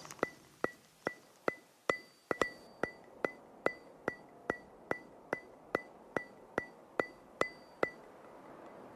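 Quiet background music made of a steady ticking beat, like a wood block or clock tick, about two and a half ticks a second, each tick with a short bright ring. The ticking stops near the end.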